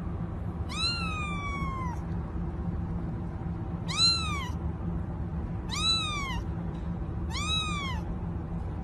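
Kitten meowing four times, each call rising and then falling in pitch; the first is the longest, and the others come about every one and a half to two seconds.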